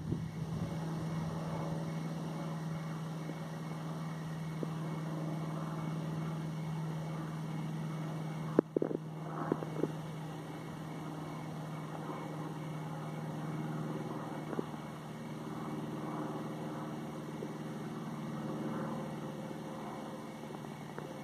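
A steady low mechanical hum, like a motor running, with a sharp knock and a few clicks about nine seconds in.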